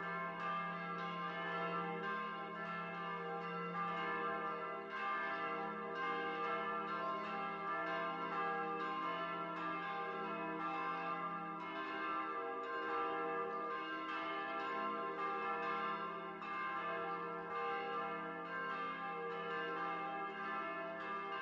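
Church bell ringing for Easter to announce the Resurrection, struck about once a second with each stroke ringing on into the next.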